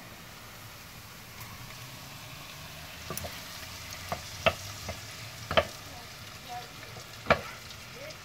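Sliced onions, green peppers and chopped tomatoes frying in oil in a nonstick pan, a steady sizzle, while a wooden spoon stirs them. In the second half the spoon knocks sharply against the pan several times.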